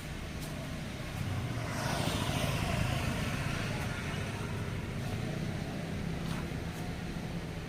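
Bus engine running with a steady low rumble; a louder rush of noise swells about two seconds in and slowly fades.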